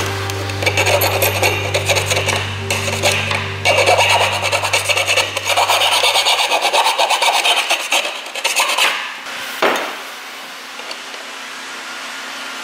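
Hand file rasping on the end of a metal exhaust pipe in quick back-and-forth strokes. The filing stops about nine seconds in, followed by a single knock.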